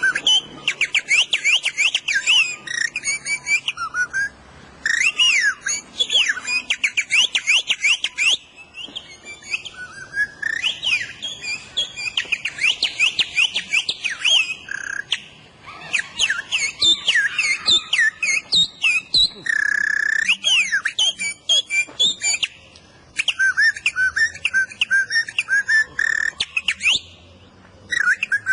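A tongue-held bird-call whistle blown in quick phrases of warbling chirps and trills, the pitch sweeping rapidly up and down in imitation of birdsong. Short pauses fall between phrases, and one steady held note comes about two-thirds of the way through.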